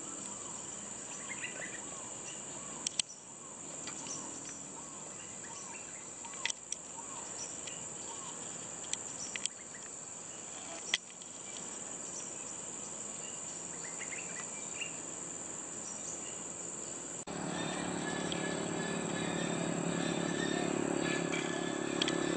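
Outdoor ambience dominated by a steady, high-pitched insect drone, with a run of short chirps in the first few seconds and a few sharp clicks. About 17 seconds in, the background abruptly becomes louder and fuller.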